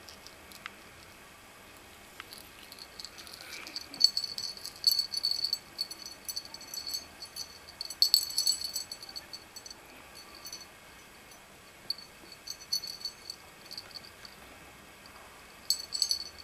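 A small metallic rattle jingling in short shaken bursts, several times over, loudest about four and eight seconds in.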